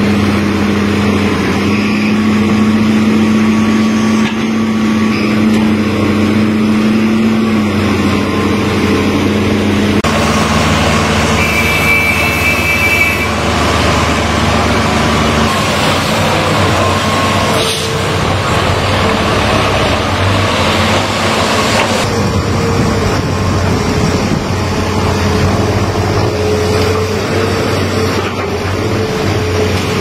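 Heavy diesel engines running steadily, an excavator's among them, with the sound shifting abruptly about ten seconds in and again past twenty seconds; one sharp knock just before eighteen seconds.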